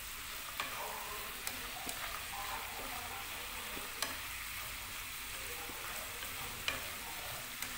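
Pork-skin cracklings sizzling in a hot pan as they are stir-fried with fish sauce and sugar: a steady frying hiss with a few sharp ticks.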